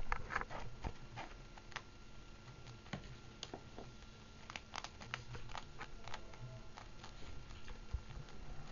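Guinea pig foraging and feeding in loose hay: irregular small crackles, rustles and clicks, scattered unevenly, over a faint steady hum.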